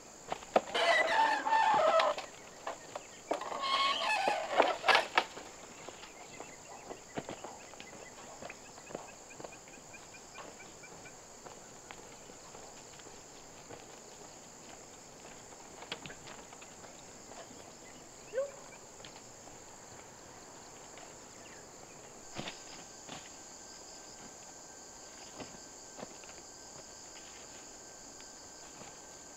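A rooster crowing twice, each crow about a second and a half long, over a steady high-pitched drone of insects. Faint scattered footstep-like clicks and rustles follow.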